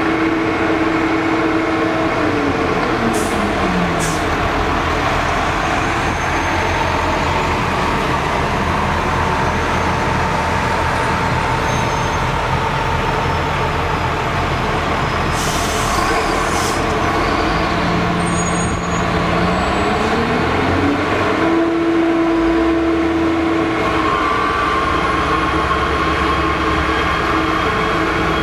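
Heavy diesel engine of a loader-mounted snowblower running under load while it throws snow, a steady loud mechanical noise. The engine note drops about two seconds in and climbs back up about two-thirds of the way through.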